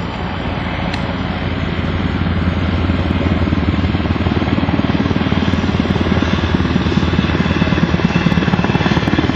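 Helicopter overhead, its rotor beat growing steadily louder, over the steady hum of a newly started 3-ton Ruud split-system heat pump's outdoor unit running.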